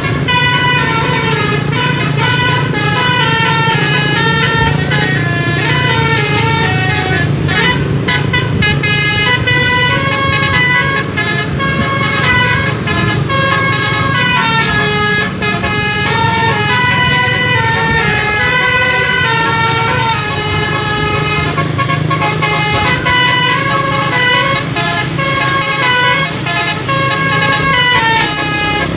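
Bus telolet musical air horn playing a long, continuous melody, its notes stepping up and down a few times a second, with the bus engine humming steadily underneath.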